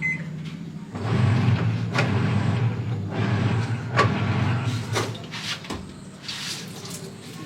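A motor running with a steady low hum for about four seconds, with two sharp clicks along the way, then stopping.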